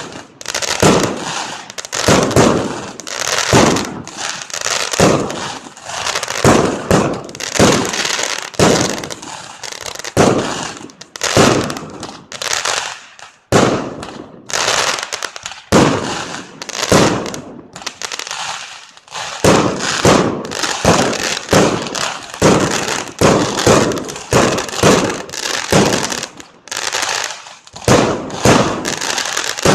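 Fireworks going off in rapid succession: a dense string of sharp bangs, about two a second, each trailing off in an echo, with a few short lulls.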